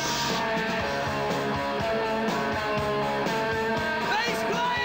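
Live rock band playing: electric guitar and bass, with a sliding high note about four seconds in.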